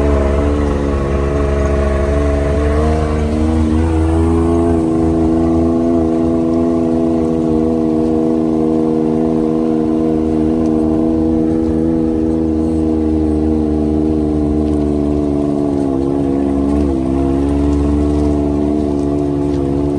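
Side-by-side UTV engine running steadily at a slow trail pace, heard from on board, with small shifts in pitch about four seconds in and again near the end.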